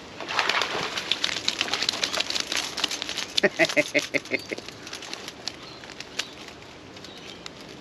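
Water splashing and dripping from a wire-framed mesh marron drop net as it is hauled out of a river, a dense patter of drops through the first three seconds. In the middle a bird gives a quick run of about eight evenly spaced notes.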